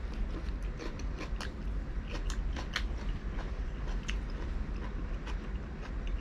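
A person chewing and biting food close to the microphone, with irregular sharp clicks and wet smacks.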